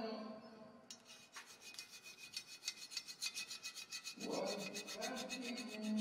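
Hand file rasping across a cast bronze ornamental mount in quick, even strokes, several a second, for about three seconds. Background music fades out at the start and comes back near the end.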